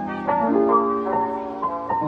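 Instrumental background music: a melody of short notes moving over held lower notes.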